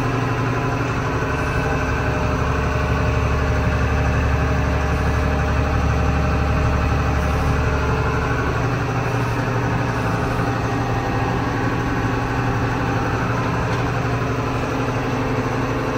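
Farm tractor's engine running steadily while driving, a deep even hum heard from inside the cab.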